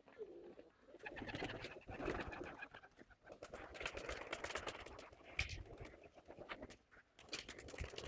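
A flock of domestic pigeons flapping their wings as they take off and land, a dense, irregular clatter of wingbeats.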